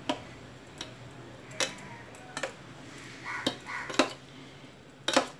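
Metal spoon clinking against the side of a stainless steel tiffin box while stirring fish pieces in thick mustard paste: about seven sharp, irregularly spaced clinks.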